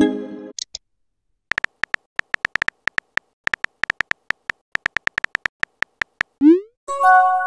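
Texting-app sound effects: a short electronic chime as a message pops up, then a long run of quick keyboard-tap clicks as a reply is typed. Near the end comes a quick rising swoosh as it is sent, then another chime.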